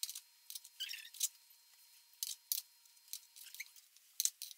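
Kitchen knife cutting angel food cake into cubes and tapping against a plastic cutting board: an irregular string of light, sharp clicks and scrapes.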